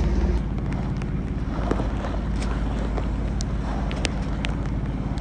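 A sailboat's engine running steadily, with a rushing of wind and rain over it and scattered sharp ticks, likely raindrops striking.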